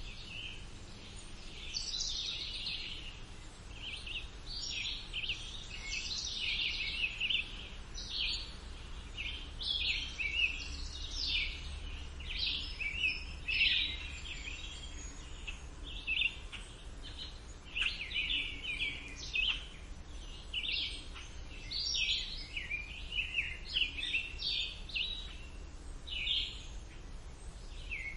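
A chorus of songbirds singing, with many short, quick chirping and warbling phrases overlapping one another, over a steady low rumble.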